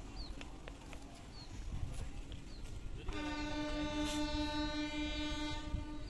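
Train horn sounding one long steady blast, starting about three seconds in and lasting about three seconds, over a low rumble.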